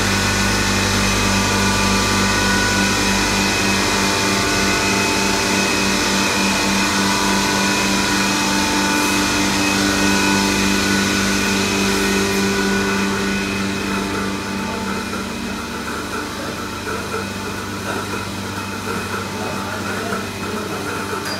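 Milking-machine vacuum unit running: a steady mechanical hum with a fast, regular pulsing. It grows quieter about two-thirds of the way through.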